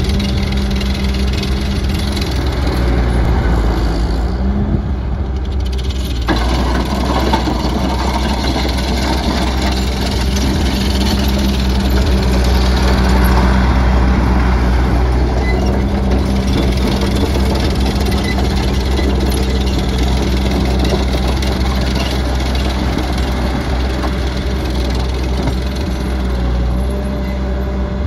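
ASV SR80 Posi-Track compact track loader's diesel engine running steadily while the machine drives on rubber tracks over gravel. A rougher rattle of tracks and gravel joins the engine about six seconds in and carries on.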